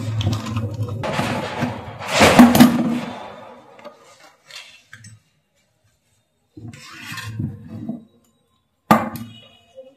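Clattering and scraping of a plastic cover plate and a circuit board with aluminium heatsinks being taken apart and handled on a bench, in irregular bursts. The loudest is about two to three seconds in, followed by shorter bursts with quiet gaps between.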